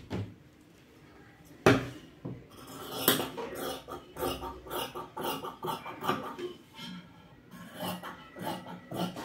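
Scissors cutting through dress fabric on a table: a quick, uneven run of metal-blade snips starting about two and a half seconds in, after a single sharp knock about a second and a half in.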